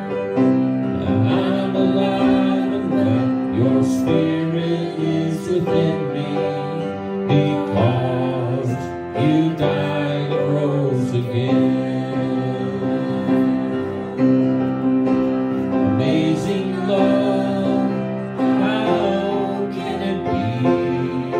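Slow live worship music: sustained keyboard chords that change every few seconds, with singing over them.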